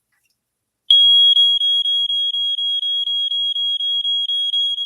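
FG888C smoke alarm's horn going off in response to test smoke: a loud, single high tone that starts abruptly about a second in and holds steady, with a slight flutter about four times a second.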